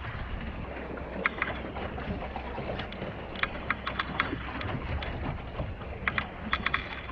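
Sailboat under way: a steady rush of wind and water, with short sharp splashes and slaps of water coming in little clusters, and wind buffeting the microphone.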